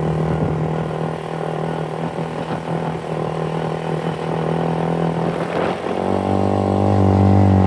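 Small 250cc four-wheeler (ATV) engine running steadily. About six seconds in, its note changes to a deeper, louder pull.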